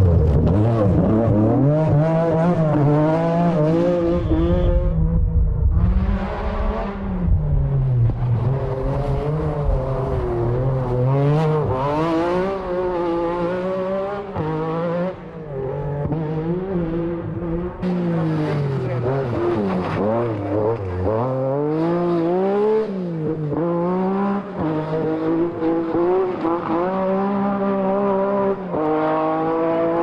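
MG Metro 6R4 rally car's naturally aspirated 3-litre V6 revving hard on a stage, its pitch climbing and dropping again and again as the driver works through the gears.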